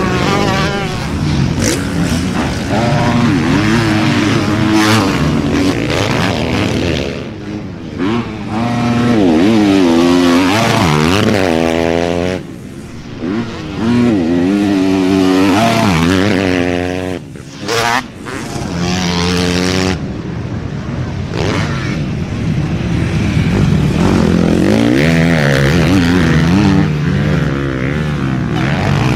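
Motocross bike engines revving hard on a dirt track, the pitch climbing and dropping over and over as the riders open the throttle and shift gears. There are brief drops in level about twelve and seventeen seconds in.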